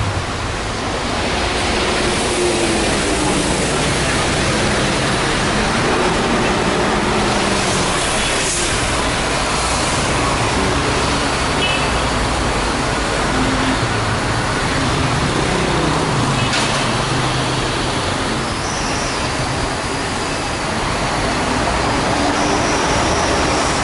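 Steady city traffic on a wet avenue: cars and buses passing, with tyres hissing on the wet road. Two brief knocks stand out, about a third of the way in and past halfway.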